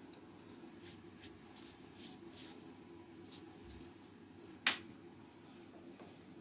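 Faint scratchy handling strokes, several in a row, then one sharp click about three-quarters of the way through, over a steady low hum.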